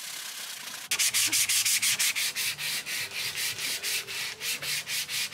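Hand sanding block scrubbing hardened fairing compound, epoxy filled with glass microballoons, on a fiberglass boat hull to sand it smooth. After an even hiss, fast back-and-forth scraping strokes start about a second in, several a second.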